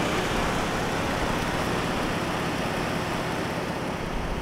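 Pickup truck engine idling steadily.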